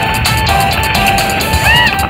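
Background music: a melody of stepping notes over a beat, with one note bending up and back down near the end.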